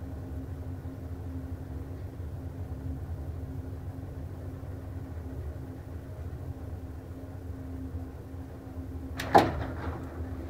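Elevator car running with a steady low motor hum. About nine seconds in a single loud clunk comes as the hum stops, the car arriving at the floor.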